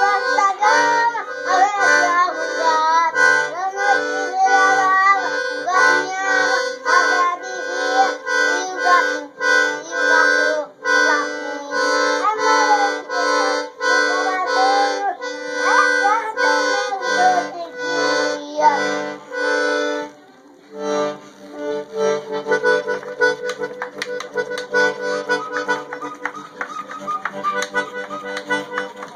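Small piano accordion (sanfona) playing: held reed chords with bass notes pumped in a steady rhythm under a melody. A voice sings along wordlessly over the first two thirds; the playing breaks off briefly about 20 seconds in and picks up again more softly.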